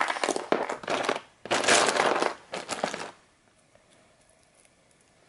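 Cat-food pouches crinkling as they are torn open and squeezed, in three bursts that stop a little past halfway.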